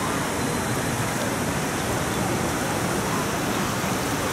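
Steady, even rushing noise of an outdoor city square, with street traffic and splashing fountain water blended together.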